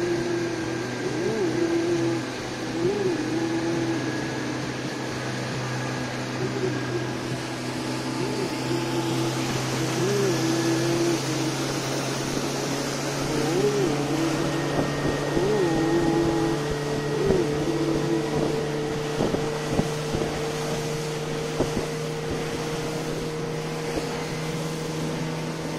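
Motorboat engine running steadily under way, with water rushing along the hull and wind on the microphone. A repeating rising-and-falling tone sounds every second or two over the hum.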